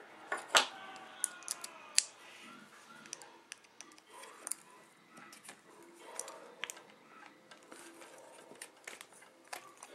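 Small hand-tool handling noises: a sharp click about half a second in and another at two seconds, as a tool is picked up off the wooden table. These are followed by scattered light ticks and taps as a screwdriver works the motor mount screws of a 1/10 RC truck.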